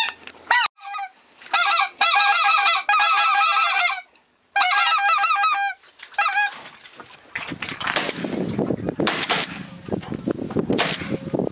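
Hand-blown goose call sounding in two long runs of rapid, rising-and-falling honks, calling to geese working toward the blind. In the last few seconds a stretch of rough noise follows.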